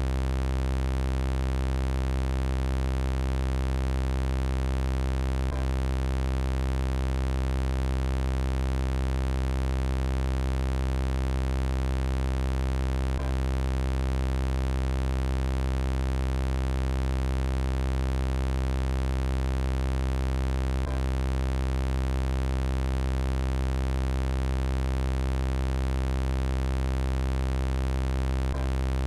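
Synthesized robot-style electronic buzz, a steady low drone made of many evenly spaced tones. A faint click comes about every seven and a half seconds where the loop repeats.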